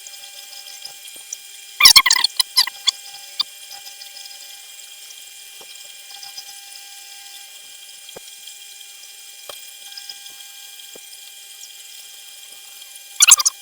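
Small hobby lathe running with a steady high whine as it drills aluminium. Loud scraping bursts come about two seconds in and again near the end.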